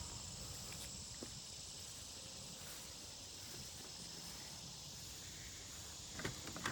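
Faint, steady high-pitched insect chirring over a low outdoor hum, with a small click about a second in and a few soft knocks near the end.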